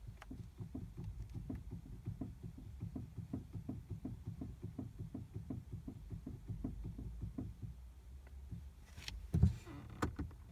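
BMW F30 320's steering rack knocking with the engine off: a long run of dull, evenly repeated knocks, about two to three a second, the sign of a worn, knocking steering rack. Near the end come two louder, sharper thumps.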